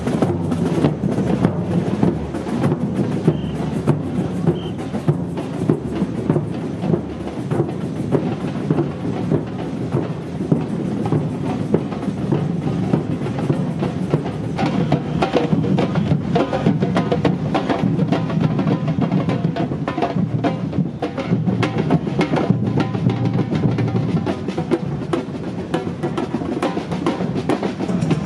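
Samba percussion band drumming a steady, dense rhythm, with bass drums and snare drums.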